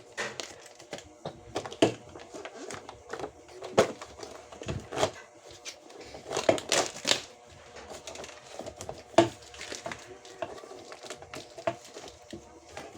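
Packaging being handled during an unboxing: crinkling and rustling, with irregular clicks and knocks of items being moved, a few of them louder.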